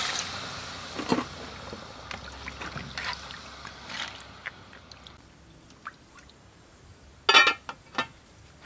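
Water pouring into an aluminium cooking pot of duck, peanuts and lotus seeds, stopping right at the start. A metal ladle follows, stirring with a few scattered clinks and scrapes, then a loud metallic clank about three quarters of the way in as the aluminium lid goes on the pot.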